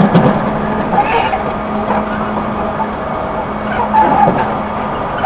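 Interior sound of a JR 211 series 5000 electric train car, the motor car KuMoHa 211-5028: a steady hum under a constant noise, with a few brief higher-pitched sounds about a second in and again about four seconds in.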